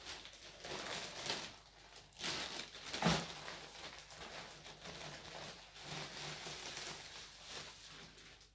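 Plastic mailer bag rustling and crinkling as it is handled and opened, with one louder bump about three seconds in.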